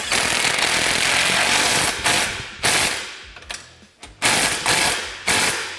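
Cordless impact wrench hammering the winch mount's bolts tight: one run of about two seconds, then several shorter bursts.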